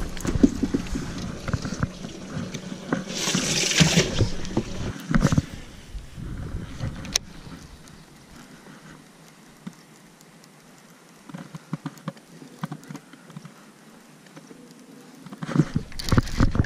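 Water splashing and handling knocks in a bass boat as a kept bass is put away, then fairly quiet reeling with a few faint clicks, and near the end a sudden burst of knocks and movement as a big bass is hooked.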